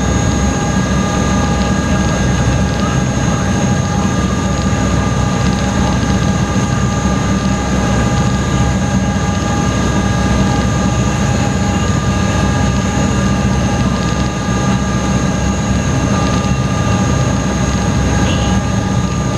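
High-speed passenger boat's engines running steadily, heard from inside the passenger cabin: a loud, even drone with a low hum and several steady whining tones over it.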